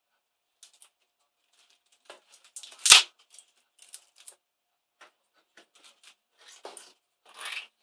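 Screwdriver prying a laptop keyboard off its metal backing plate: scattered clicks and small snaps of plastic and metal, with one sharp, loud crack about three seconds in, and brief scraping near the end.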